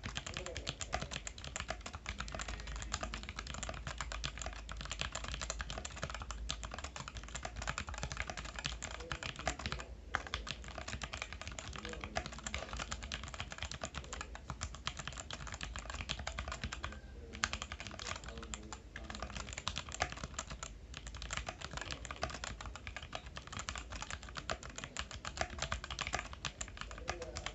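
Fast, continuous typing on a Vortex Series VX5 mechanical keyboard with Outemu Brown tactile switches: a dense stream of keystroke clicks, with a short pause about ten seconds in and two more in the second half.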